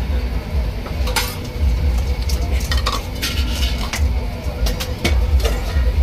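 Metal ladle and tongs clinking and scraping against a stainless steel mixing bowl as a Thai seafood salad is tossed: irregular clinks, one leaving a brief metallic ring about three seconds in, over a steady low rumble.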